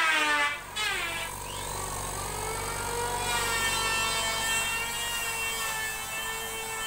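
A motor running with a steady low hum and a held tone, starting about a second in, after a brief wavering pitched sound at the very start.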